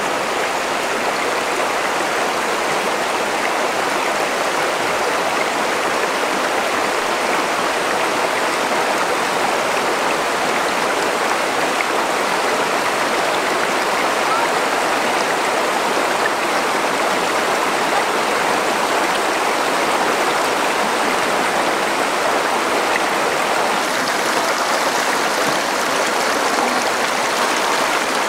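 River water rushing steadily, an even, unbroken hiss of flowing water.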